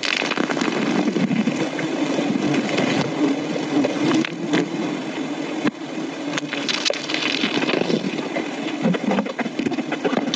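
A dense mass of honey bees buzzing steadily around their comb, with scattered cracks and rustles from the comb and branches being handled.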